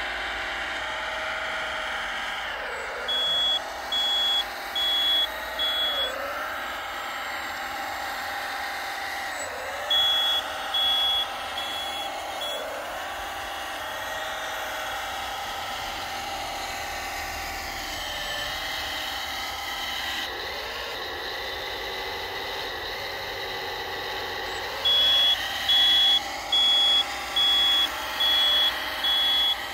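1/14-scale RC hydraulic wheel loader running, a steady motor whine whose pitch dips and rises as it drives and works. A high reversing alarm beeps about twice a second in three runs: a few seconds in, around ten seconds, and again near the end.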